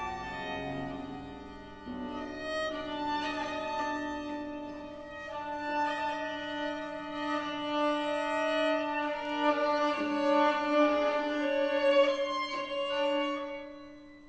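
Solo violin with a chamber ensemble playing contemporary classical music: overlapping sustained bowed notes with a few accented attacks, swelling louder about two-thirds through and falling away near the end.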